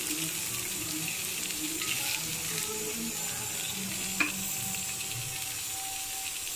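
Masala-coated fish steaks shallow-frying in oil on an iron tawa: a steady sizzle, with a single click about four seconds in.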